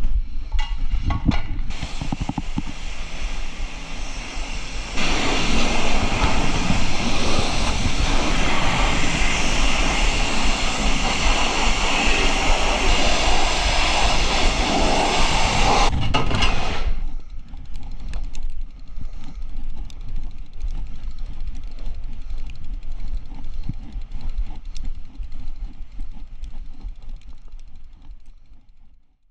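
Pressure-washer wand spraying water onto a fat bike, a loud steady hiss that grows louder about five seconds in and cuts off around sixteen seconds. After that, a quieter steady rumble from riding the fat bike outdoors, fading out at the end.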